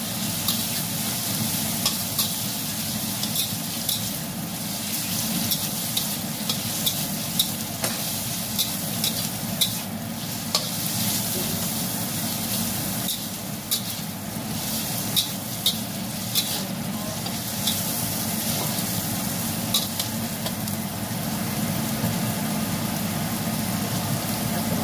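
Shrimp and garlic sizzling in hot oil in a stainless steel wok, stir-fried with a metal spatula. Frequent short clicks and scrapes of the spatula against the wok sound over the steady sizzle.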